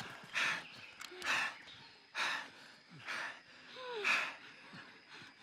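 Heavy panting from people out of breath: loud, noisy gasps about once a second.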